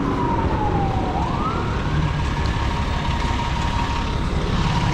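An emergency vehicle siren wailing, its pitch sliding slowly down, then rising about a second in and holding high, over a steady low rumble of wind and traffic.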